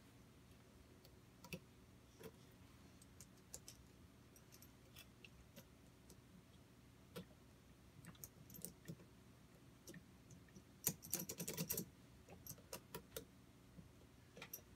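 Mostly near silence, with faint scattered clicks and taps of small metal parts being handled and fitted by hand onto a small air engine, and a quick run of clicks a little past halfway.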